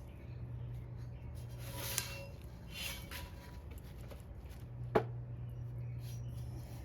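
Grease being spread on a wheel rim's bead seat: soft smearing and rubbing, a light click about two seconds in and a sharper knock about five seconds in, over a low steady hum.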